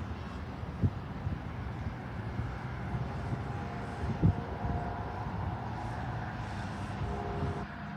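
Steady rumble of a jet aircraft's engines, with a faint whine that grows in during the second half. Two brief low thumps come about one second and four seconds in.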